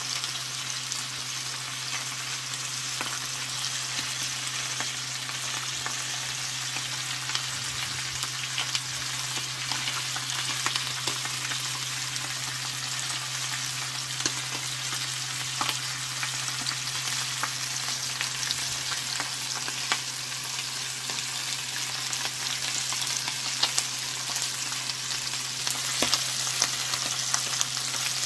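Whole mackerel (galunggong) sizzling in hot oil in a stainless steel pot, a steady hiss full of fine crackles, with a few sharper pops near the end. A steady low hum runs underneath.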